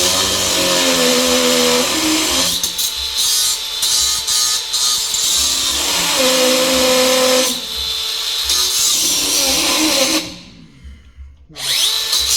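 DeWalt cordless 4.5-inch flathead angle grinder cutting through thick steel plate, its motor pitch sagging and recovering under load. About ten seconds in it cuts out abruptly, the motor stopping under the heavy cut, then spins back up with a rising whine.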